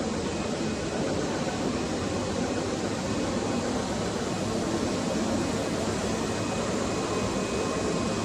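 Plastic suction-hose extrusion line running: a steady machine hum and hiss with faint, even whining tones over it.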